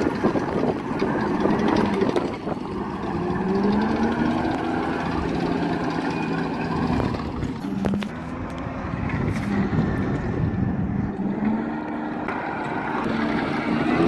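Tracked armoured personnel carrier of the M113 type driving, its engine running steadily with the pitch rising as it speeds up a few seconds in and again near the end.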